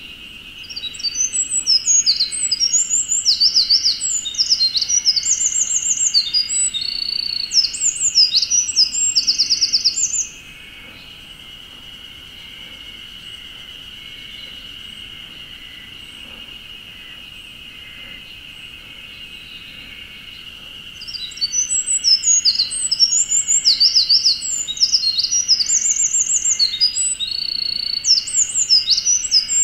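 Eurasian wren singing two long songs of rapid trills and warbles, each about ten seconds long, the second starting about twenty seconds in. Beneath them is a steady high-pitched drone.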